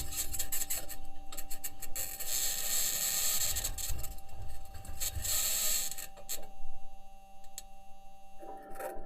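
Scraping, grinding and clicking from the Perseverance rover's wheels and chassis rolling over the Martian ground, in uneven bursts with a few steady tones underneath.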